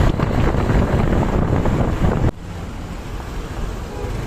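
Loud wind buffeting the microphone over road traffic noise. It drops off sharply a little over two seconds in and continues more quietly.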